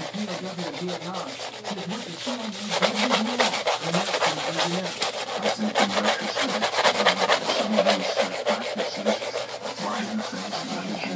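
Rapid, irregular rubbing and scratching noises, dense and continuous, heaviest in the middle of the stretch.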